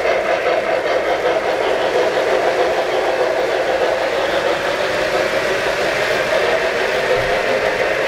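Several O-gauge three-rail model trains running past on a layout: a steady rumble of metal wheels on track and electric motors.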